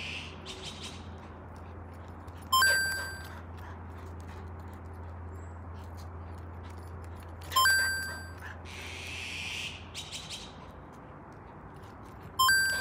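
A bright, ringing chime sound effect that strikes suddenly three times, about five seconds apart, each ring fading within about half a second.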